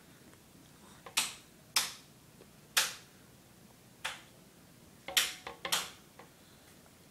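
Plastic spoon tapping and knocking against a plastic plate while a small child scoops cake: about seven sharp, short clicks at uneven intervals, with a quick cluster of three or four a little after halfway.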